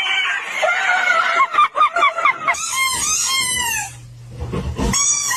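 An animal's loud, repeated calls, each one bending up and down in pitch, coming quickly one after another through the middle.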